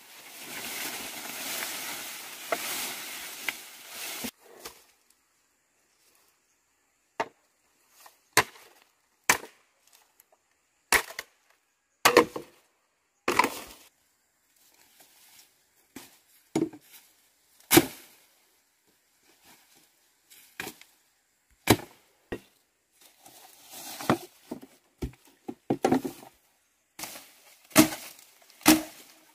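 A few seconds of steady water sloshing that stops abruptly, then a run of sharp chopping strikes on wood. The strikes are irregular, roughly one a second, sometimes in quick pairs, and come faster near the end.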